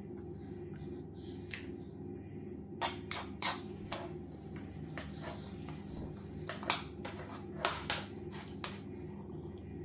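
A plastic baby spoon scraping and clicking against a plastic bowl as food is scooped up, in a handful of short sharp clicks over a steady low hum.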